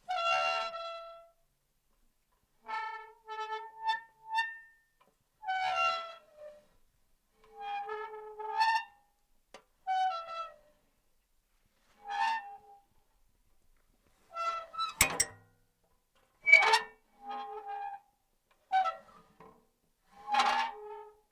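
Metal creaking: about a dozen separate high, pitched creaks, each up to a second or so long, with short silences between them. A sharp click comes about fifteen seconds in.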